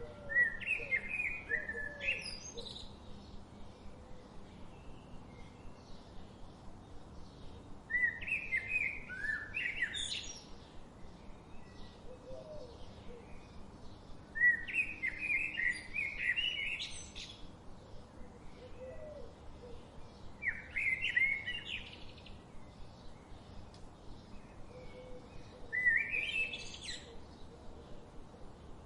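A songbird repeating a short, warbled song phrase about every six seconds, five times in all. Each phrase ends in quick upward sweeps. Fainter low calls and a steady background chatter of other birds run between the phrases.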